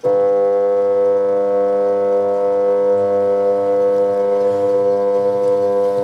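Washing machine motor giving a loud, steady electrical hum made of several even tones. It starts abruptly and holds without change.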